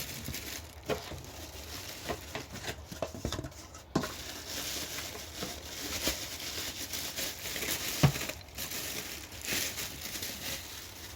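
Packaging crinkling and rustling as an electric kettle is unwrapped by hand, with a few sharp knocks, the clearest about four and eight seconds in.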